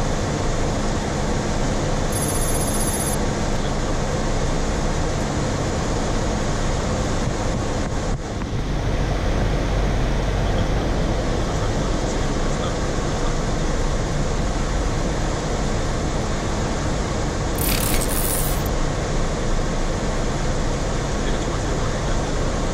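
Steady flight-deck noise of a Boeing 737-400 in flight: a constant rush of airflow and machinery. A short burst of hiss comes about eighteen seconds in.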